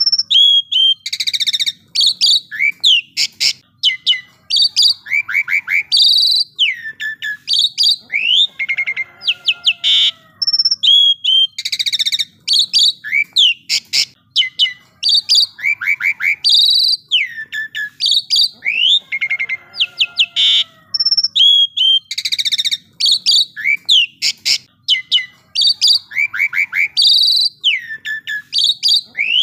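Asian pied starling (jalak suren) singing a loud, continuous, varied song of whistled glides, rapid trills and harsh chattering notes. The same run of phrases repeats about every ten seconds.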